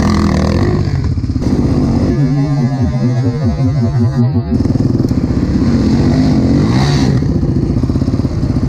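Quad (ATV) engines running at low revs. From about two seconds in to about four and a half seconds, the revs rise and fall repeatedly as the throttle is blipped.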